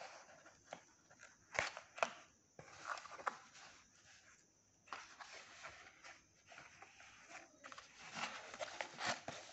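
Hands opening a corrugated cardboard shipping box: irregular rustling and scraping of the flaps, with two sharp knocks about one and a half to two seconds in.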